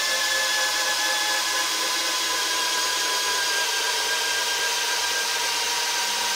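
DeWalt DCD999 cordless drill's brushless motor running steadily as it drives a 12 × 600 mm screw into timber, its whine sinking slowly in pitch under heavy load. The drill is struggling near the end of the screw, close to tripping its overload protection.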